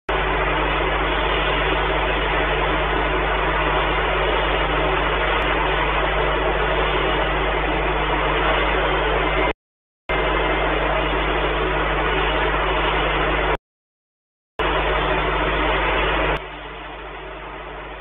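Steady loud hiss with a low electrical hum from a nest camera's live audio feed. It cuts out completely twice, briefly, and drops in level near the end.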